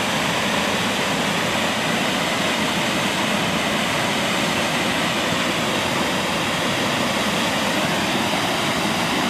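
Waterfall and river rapids making a steady, unbroken rushing noise.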